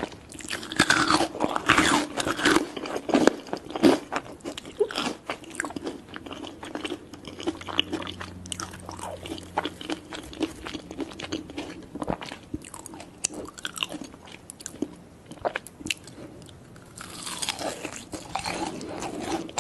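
A person biting and chewing crunchy food close to the microphone: dense, crisp crunching, heaviest in the first few seconds and again near the end.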